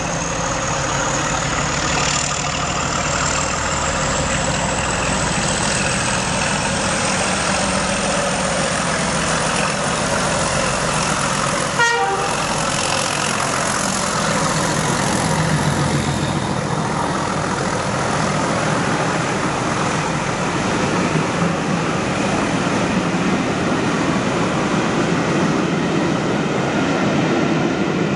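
Diesel-hauled train of Class 31 and Class 66 locomotives running loudly on the line, with a high whistle that rises slowly in pitch over the first half. A short, sharp sound comes about twelve seconds in.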